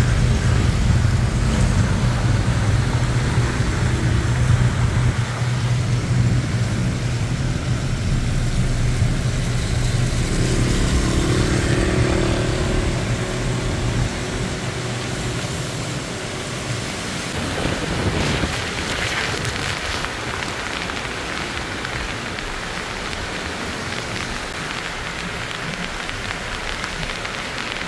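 Heavy rain and car traffic heard from inside a car: a steady low engine hum through about the first half, then an even hiss of rain and tyres on the wet road.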